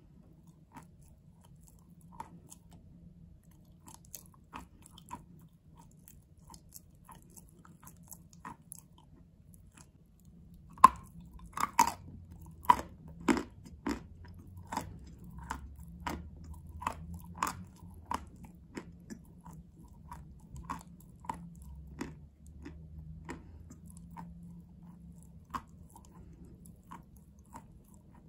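Chewing a chunk of edible chalk, with close, sharp crunches in the mouth. Sparse at first, then a run of loud, quick crunches from about ten seconds in, thinning out again near the end.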